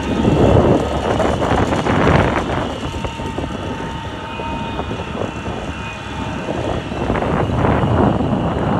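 Rushing wind and road noise from a moving vehicle, swelling in gusts about half a second in, again around two seconds, and near the end.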